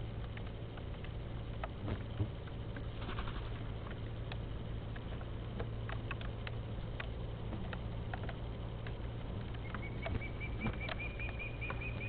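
Steady low hum and hiss of an outdoor nest-camera microphone, with scattered light taps and clicks. Near the end a small bird calls a quick run of short high notes, rising slightly.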